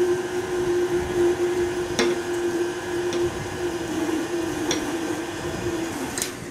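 KitchenAid tilt-head stand mixer running steadily, its flat beater mixing pumpkin puree into beaten sugar and eggs in a glass bowl. Three sharp taps come through the hum, and the motor cuts off near the end.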